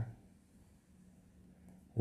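Near silence: faint room tone with a low steady hum, just after the end of a man's spoken word.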